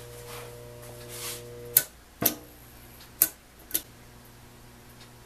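A Schauer battery charger's transformer hums steadily while the charger puts out only a volt or two. Its front switch is then snapped, giving about four sharp clicks from about two seconds in. The hum cuts off at the first click and comes back fainter between the later ones.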